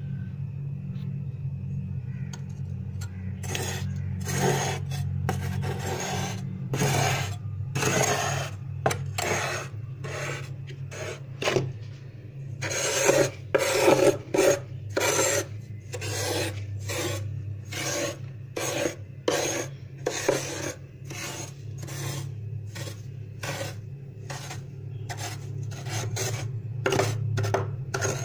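A metal spoon scraping frosted ice in repeated rasping strokes, one to two a second, starting a few seconds in. A steady low hum runs underneath.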